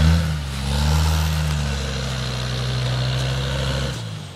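Land Rover 90's engine pulling hard off-road, its revs held high and steady, then easing off suddenly near the end.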